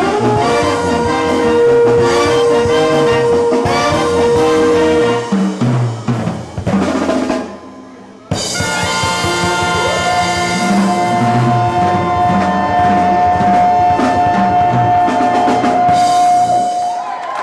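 A brass band of trumpets, clarinet, baritone horn and tuba playing with a drum kit. The music thins out and pauses for a moment about eight seconds in, then resumes and settles into a long held chord that fades near the end.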